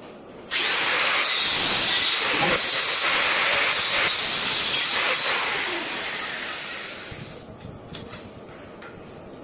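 Power tool switched on abruptly about half a second in, running loudly for about four and a half seconds, then winding down and fading over the next two seconds.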